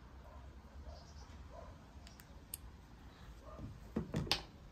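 Faint handling clicks, then two or three knocks about four seconds in as a Samsung Galaxy Z Flip3 in a silicone case is set down on a wooden table.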